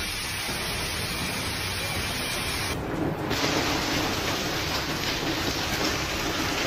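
Large hailstones pelting down on pavement and cars in a heavy storm, a dense steady rush of impacts with a brief change in tone about three seconds in.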